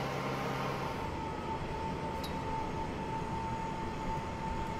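Steady din of heavy construction machinery. About a second in, a low hum fades and a high steady whine sets in and holds.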